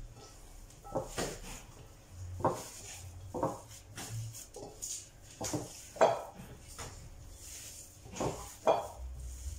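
Hands kneading and squeezing raw lamb mince in a ceramic bowl: a dozen or so irregular squishes and knocks against the bowl, the loudest about six seconds in.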